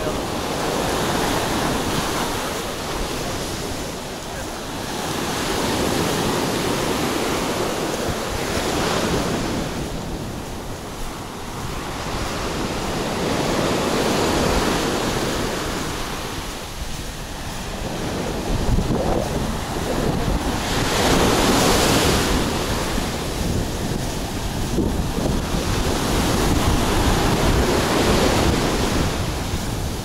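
Sea surf breaking and washing up a sandy beach, swelling and fading every few seconds, with wind buffeting the microphone.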